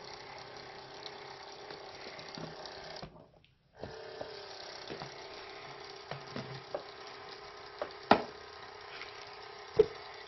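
The small battery-powered pump of a toy kitchen sink running with a steady hum as it pushes water through the toy faucet. The hum cuts out for about half a second a third of the way in. A few sharp knocks come near the end.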